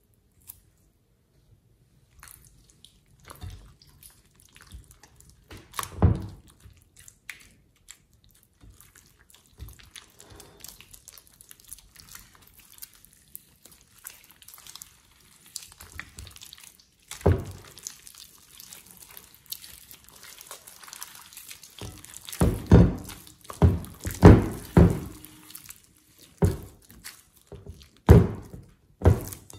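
Sticky slime being squeezed and kneaded by hand, making wet squelches and small popping clicks. They are scattered at first, with a run of louder squelches in the last several seconds.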